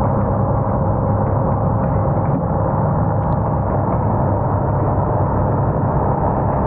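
Steady drone of a light aircraft's engine and propeller heard from inside the cabin, unbroken, with a low hum and several held tones.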